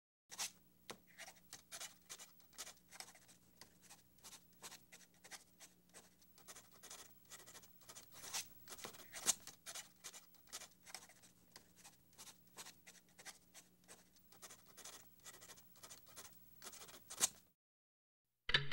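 Ballpoint pen writing on a paper pad: quick, irregular scratching strokes that stop about a second before the end, over a faint steady hum.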